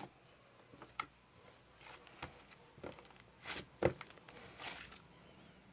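Slime being squished and pressed by hand: scattered soft clicks and short squelches.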